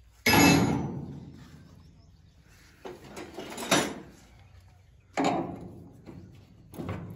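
Metal knocks on the steel frame and bearing shaft of a straw reaper under repair. A sharp knock rings and dies away over about a second. A few lighter knocks follow around three to four seconds in, and another ringing knock comes about five seconds in.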